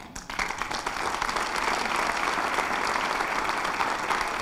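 Audience applauding: dense, steady clapping from a large crowd that starts a moment in.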